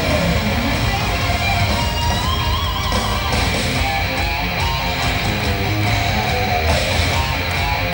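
Live heavy metal band playing at full volume: distorted electric guitar, bass and drums, heard from the crowd in an arena.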